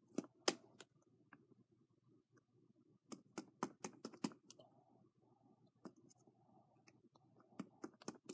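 Pencil point jabbing and tapping at a plastic slime container to poke a hole in it: irregular sharp clicks, in bunches near the start, around the middle and near the end.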